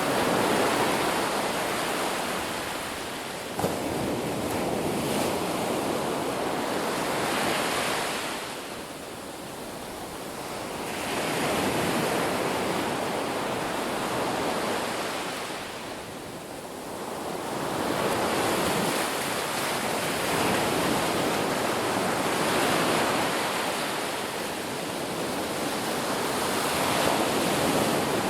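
Ocean surf breaking on a beach: a continuous wash of waves that swells and ebbs slowly, easing off twice before building again.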